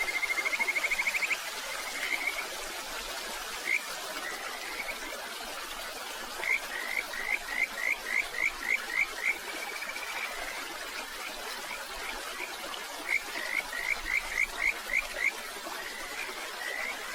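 A frog calling over a stream: runs of short, rising whistled notes, several a second, with a quick trill at the start, against the steady rush of flowing water.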